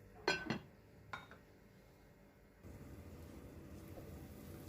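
Kitchenware clinking: a cooking pot and its lid knocking together twice in quick succession, the second fainter. A low steady noise sets in about two and a half seconds in.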